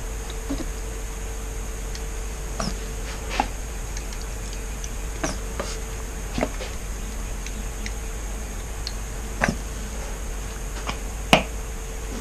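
Scattered light clicks and taps of objects being handled on a work surface, about one every second, over a steady background hum.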